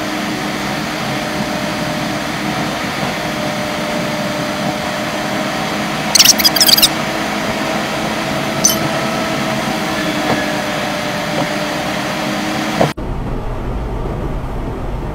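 Steady in-cabin driving noise picked up by a car's dashcam at highway speed, about 85 km/h: a constant hum of engine and road. A brief bright clinking rattle comes about six seconds in. Near the end the noise switches abruptly to a deeper rumble.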